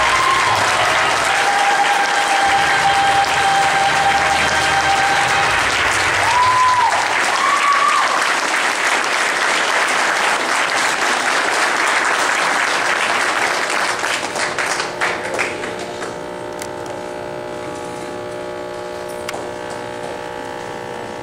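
Audience applauding, with a few whistles riding on the clapping. The applause dies away about fifteen seconds in, leaving a steady held chord of music.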